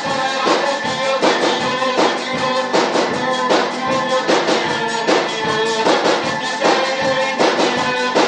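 Outro music with a steady beat.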